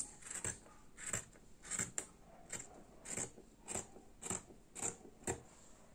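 Scissors snipping through cotton fabric, about ten short cuts at roughly two a second, trimming the excess seam allowance after the first pass of a French seam.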